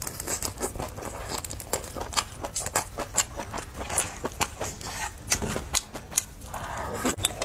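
Close-up chewing and wet mouth sounds of a mouthful of food in thick sauce: a steady run of quick clicks and smacks.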